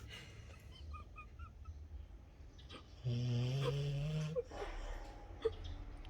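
Sleeping dog snoring: one long, pitched snore about three seconds in, lasting just over a second and rising slightly in pitch, between quieter breaths.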